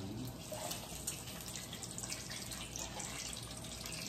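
Pork longganisa frying in a pan, a steady crackling sizzle.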